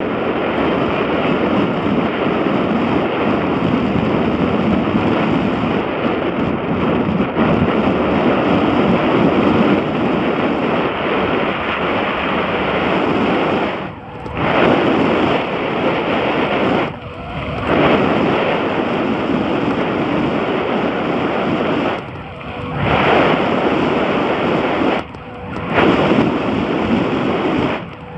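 Heavy wind buffeting on a helmet-mounted camera microphone from riding a mountain bike fast down a dirt trail: a loud, steady rush that dips briefly a few times.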